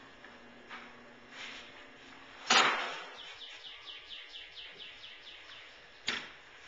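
Epoxy dispensing gun being worked at the drilled holes: a sharp clack about two and a half seconds in, followed by a quick, even run of about a dozen short high chirps, and another sharp click near the end.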